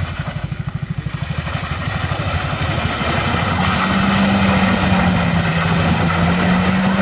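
Vehicle engine running with an even low throb, getting louder from about two seconds in, with a steady drone joining it about halfway through.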